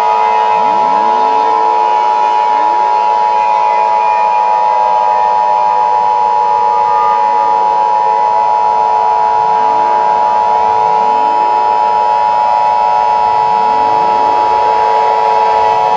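Emergency Alert System two-tone attention signal: a loud, steady dual tone held unbroken, announcing an emergency message. Fainter sliding sweeps repeat underneath it.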